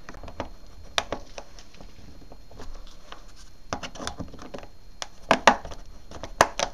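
Steel putty knife blade clicking and scraping in the slots of a brass door viewer's eyepiece as it is turned to tighten the viewer into the door. Scattered irregular clicks, the loudest about five seconds in and a cluster near the end.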